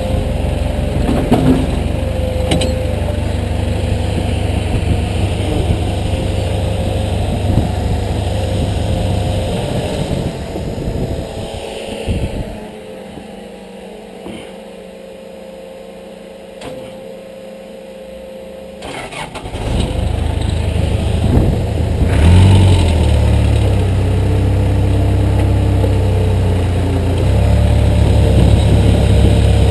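A backhoe's diesel engine running under load. About twelve seconds in it drops away to a much quieter, low running for roughly six seconds, then picks back up and revs louder again.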